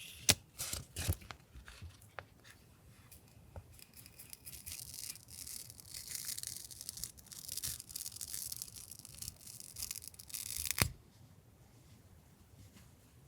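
Stationery packaging being handled and opened: a few sharp taps and clicks, then several seconds of continuous scratchy rubbing or tearing, ending on a sharp click.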